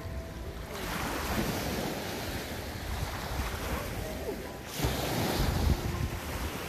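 Small waves washing in the shallows of a lake shore, with wind buffeting the microphone. It grows louder about five seconds in, as a person runs splashing through the shallow water.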